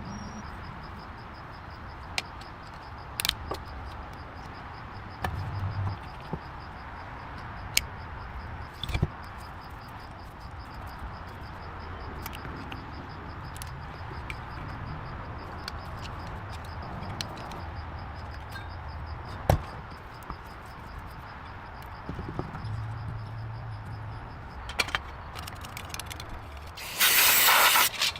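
Steady low workshop background with scattered light clicks and knocks, then about a second before the end a power tool starts up loudly.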